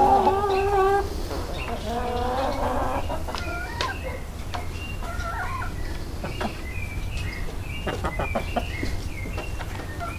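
Barred Plymouth Rock rooster ending a loud crow about a second in, followed by a second, lower drawn-out call. After that come many short, high clucks and chirps from the chickens.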